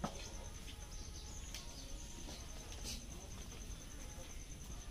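A steady, high-pitched insect trill made of rapid even pulses, over faint outdoor background noise, with one sharp click at the very start.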